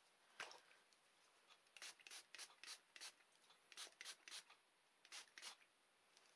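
Faint, short scratchy strokes of fingers rubbing and dabbing ink into the textured, hardened Powertex surface of a canvas, in irregular clusters of several strokes.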